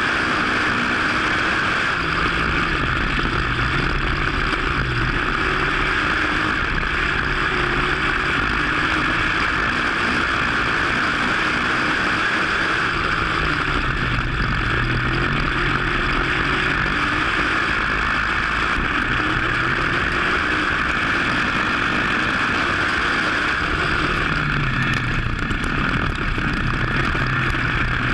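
WISSOTA modified dirt-track race car's V8 engine at racing speed, recorded onboard. Its pitch rises and falls every several seconds as the throttle comes on and off, with a steady rush of wind and mechanical noise over it.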